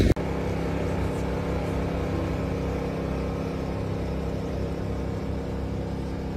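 An engine running steadily, a low even hum with a few unchanging tones.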